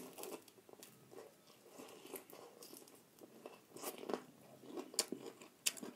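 A person biting and chewing fried chicken, with irregular sharp crisp clicks from the bites and chewing, more of them in the second half.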